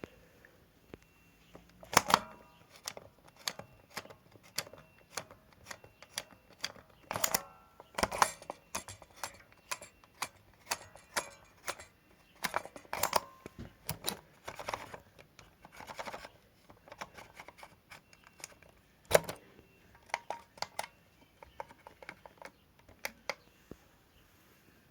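Buttons and the program selector knob on a Hotpoint-Ariston AVSL105 washing machine's control panel being pressed and turned: a run of sharp plastic clicks at uneven spacing, with a couple of short beeps.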